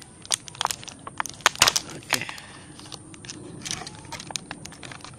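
Clear plastic packaging crinkling and crackling while it is handled, with a series of sharp clicks and snaps, the loudest about a second and a half in.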